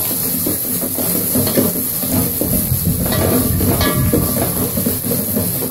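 Sliced onions sizzling in hot oil in a stainless steel pot, nearly softened, while a steel ladle stirs them and scrapes the pot a few times, mostly in the second half.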